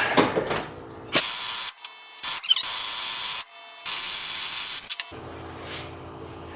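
Pneumatic wrench run in four short trigger pulls on a seized bolt, each a hiss of air, the last and longest about a second. The compressor has not yet built up enough air pressure to break the bolt loose.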